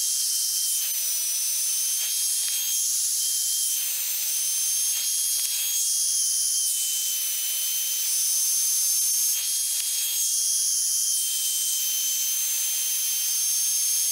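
Handheld electric router running at full speed with a steady high whine as it cuts chamfers along the edges of a timber knee brace. The pitch sags slightly at times under load, and there are several brief stretches of louder hissing cut noise as the bit bites into the wood.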